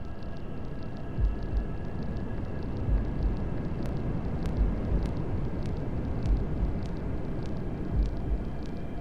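Steady white noise from a running hair dryer, with a faint steady motor whine, under a deep heartbeat thump that comes in double beats about every 1.7 seconds.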